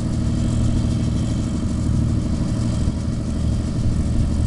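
Small two-bladed helicopter running on the ground with its main and tail rotors turning: a steady, loud engine and rotor drone.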